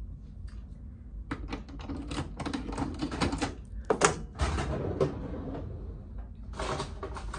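Packaging being handled and prised open, giving rapid runs of small clicks and crackles that ease off for a moment and then start again near the end.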